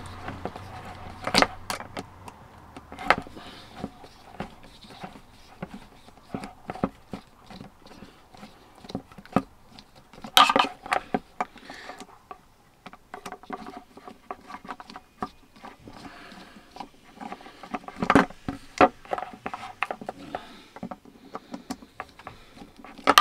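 Screwdriver working long screws out of a small 12V water pump's plastic housing: a string of irregular small clicks and scrapes, with a few louder clacks scattered through.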